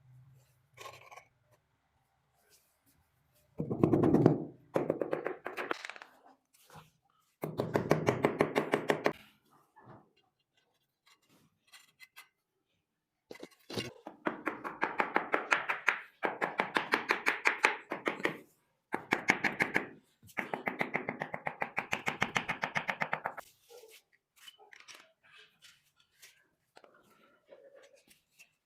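Rapid, even tapping on a large ceramic floor tile as it is bedded down, in four bursts of a few seconds each, the last two the longest.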